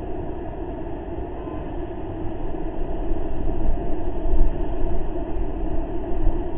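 Steady outdoor rushing noise picked up by a webcam microphone, swelling slightly midway, with no distinct events in it.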